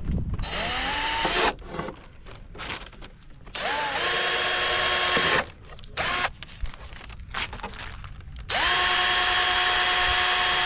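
Cordless drill boring holes through a carbon fiber rear diffuser, running in three bursts of one to three seconds. Each burst spins up with a short rising whine and then holds a steady pitch, with a brief blip between the second and third.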